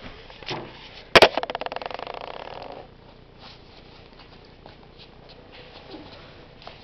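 A sharp thump about a second in, followed by a rapid, pulsing rattle or buzz that fades out over about a second and a half; after that only faint rustling and handling clicks.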